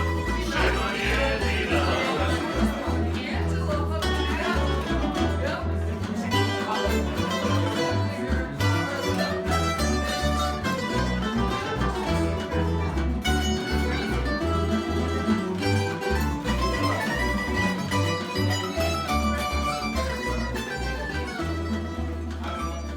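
Croatian tamburitza ensemble playing an instrumental tune live: quick plucked tamburitza strings over a pulsing bass line.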